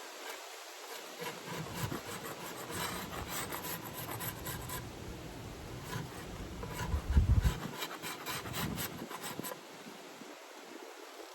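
A wooden Layens hive frame scraping and clicking against the wooden hive body and neighbouring frames as it is slid back into place, with a low bump about seven seconds in.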